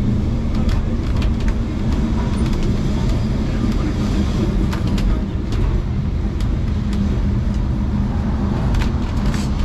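Vintage Lisbon Tram 28 running along its street rails, heard from inside at the front: a steady low rumble and hum, with scattered sharp clicks and rattles.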